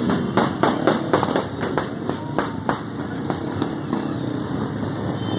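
Motorcycle engines running in a group of bikes, with a string of sharp, irregular pops, about two or three a second.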